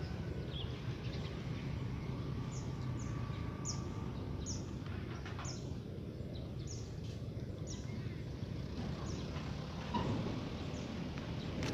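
A small bird chirping over and over, short high notes that drop in pitch, about one or two a second, over a steady low outdoor rumble.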